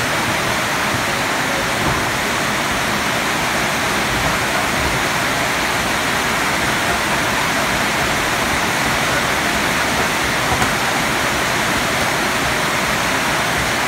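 Steady, loud rushing noise that does not change, with no distinct hits standing out.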